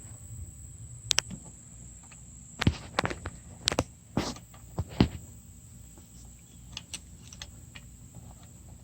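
Scattered sharp metal clicks and knocks of tools working a snap ring back into place on a truck's front axle hub, most of them in a cluster around the middle and a few lighter ticks later. A faint steady high-pitched whine sits underneath.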